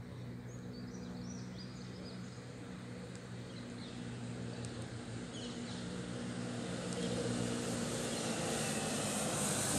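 Distant engine drone, a steady low hum under a wash of noise that swells gradually louder, like a vehicle or aircraft approaching. Faint high chirps sound in the first half.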